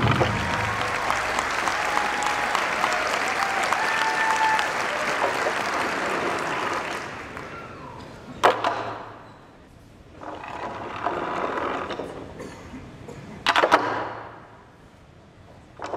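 Large crowd applauding and cheering, fading out after about seven seconds. Then two sharp smacks about five seconds apart, with quieter crowd noise between them.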